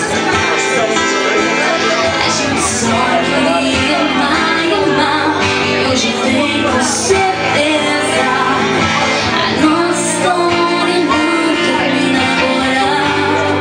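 Live acoustic band: a woman singing into a microphone over two strummed acoustic guitars, playing a Brazilian pop ballad.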